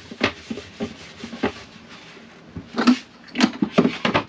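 Wooden chopping board knocking and scraping on a benchtop as it is cleared and stood up: a string of separate knocks and rubs, the loudest clatters about three seconds in and again just before the end.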